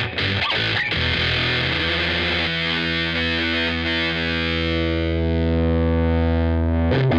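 Electric guitar through a Killer Otter Electric Party Animal fuzz pedal: a few quick fuzzy notes, then a single note held and sustaining for several seconds, its fizzy top fading as it rings, before a new note is struck near the end.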